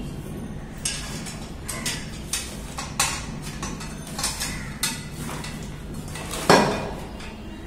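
Metal satellite-dish mount parts, brackets and the bent feed arm, clinking and knocking together as they are handled and fitted. A string of separate knocks, the loudest about six and a half seconds in.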